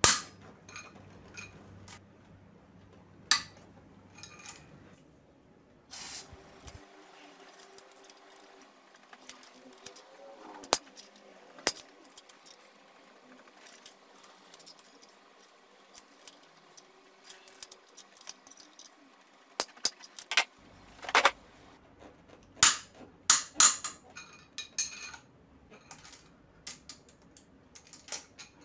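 Metal hand tools clinking and jangling as a socket wrench with an extension is fitted to and worked on the cylinder head nuts of a Honda CBR250R engine: scattered sharp clicks and taps, thickening into a quick run of clinks in the second half.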